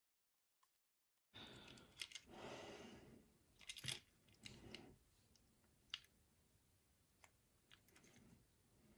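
Faint handling sounds of a padlock being worked on with small tools: soft scraping with a few sharp clicks. They start after about a second of dead silence.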